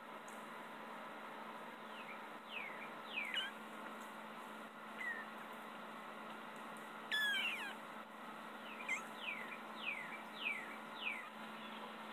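Two-week-old kittens squeaking: about ten short, high mews, each falling in pitch, the loudest about seven seconds in, over a steady low hum.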